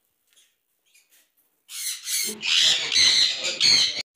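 Caged parrots squawking: a few faint chirps, then loud, harsh, high screeching calls from about halfway through.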